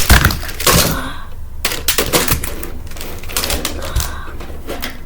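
Plastic Rubik's cubes clattering and knocking against each other and the organizer as they are pulled out and set down, an uneven run of clicks and knocks.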